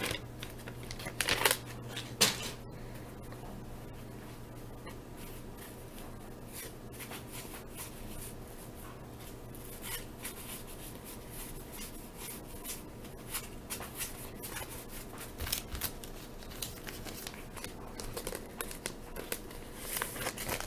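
A 1983 Topps wax pack torn open and its baseball cards handled and flipped through by hand: faint rustling of the wax paper with scattered light card flicks, a little louder in the first couple of seconds.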